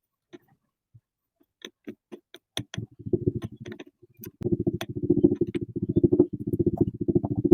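Slime being squeezed and pressed: scattered sticky pops at first, then from about three seconds in a dense run of rapid crackling pops that grows louder.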